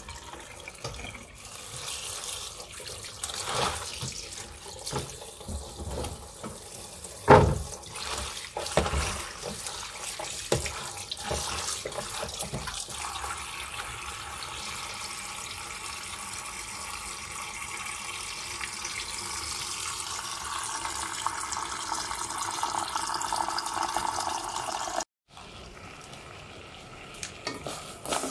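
Tap water running into a plastic basin of Malabar spinach leaves as they are rinsed by hand, with splashes and knocks from the leaves and basin in the first half. Later the water runs on smoothly, its pitch slowly rising, until it cuts off suddenly near the end.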